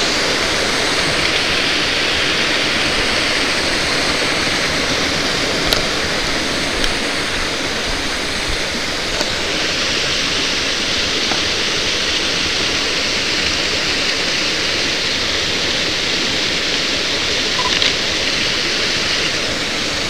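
Steady rushing of a small mountain waterfall and stream, with a few faint clicks.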